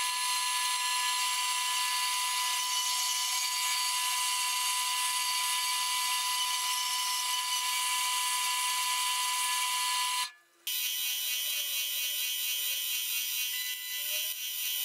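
Small horizontal metal-cutting bandsaw running steadily with a high whine as its blade cuts through a metal block. It stops abruptly about ten seconds in. After a short break a drill runs with a different steady whine, its bit boring into a metal part held in a vise.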